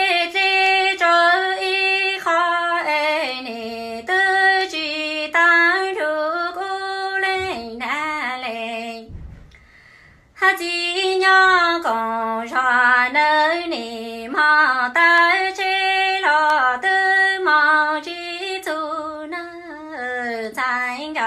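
A woman singing kwv txhiaj, Hmong sung poetry, unaccompanied, here a song of longing for her parents. She sings two long phrases of held notes that step and bend in pitch, with a breath pause about nine seconds in.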